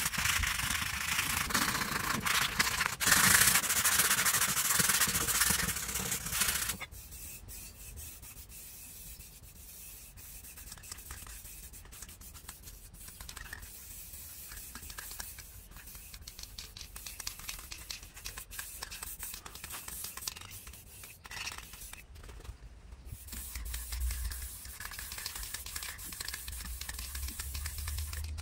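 Rusty sheet-metal amplifier bracket being sanded by hand with sandpaper: loud, steady rubbing strokes that stop suddenly about seven seconds in. After that it is much quieter, with scattered light clicks and handling noises.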